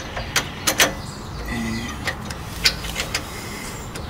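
Sharp metallic clicks and taps, about six, spread unevenly, as a steel bolt and misalignment spacers are worked into the Heim joint on an anti-rock sway-bar link.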